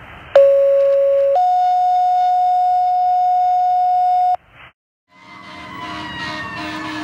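Two-tone fire dispatch page heard over a radio scanner, between bursts of radio hiss: a lower tone for about a second, then a higher tone held for about three seconds, cut off sharply. About five seconds in, a siren sounds in the distance with slowly falling pitch, over road noise.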